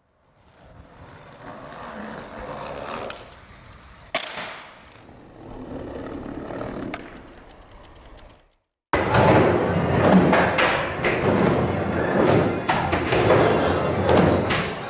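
Skateboard wheels rolling and clacking in a skate bowl, loud and continuous from about nine seconds in. Before that come two fainter swells of sound with a single sharp snap between them.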